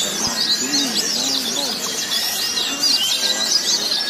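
Many white-eyes (pleci) singing at once, as at a songbird contest: a dense, unbroken chorus of fast, high, twittering chirps and trills overlapping one another.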